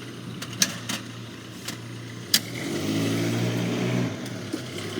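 A motor vehicle's engine running, swelling louder for a second or so from about halfway in, then dropping back, with a few sharp clicks over it.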